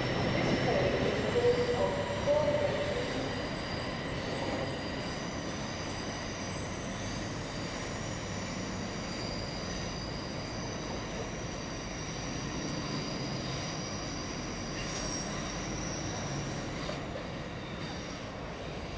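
Train moving along the rails with its wheels squealing: several high, thin tones held over a steady rumble. It is louder in the first few seconds, then settles lower.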